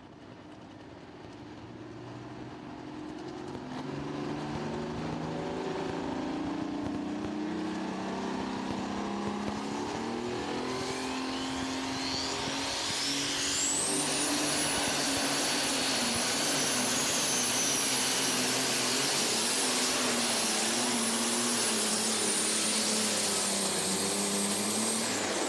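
Turbocharged super stock diesel pulling tractor engine revving up on the line, its pitch climbing in steps, then running flat out through the pull. About halfway through, a turbo whine rises to a very high pitch and holds, sagging slightly, until it cuts off suddenly near the end as the power comes off.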